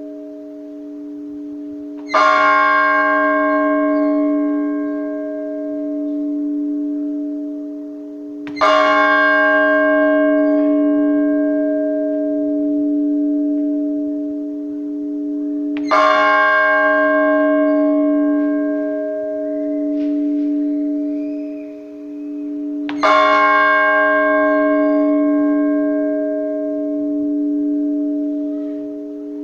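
A single Orthodox church bell struck slowly, four strokes about seven seconds apart, each ringing on and fading into a long, steady hum: the measured tolling that calls the faithful to vespers.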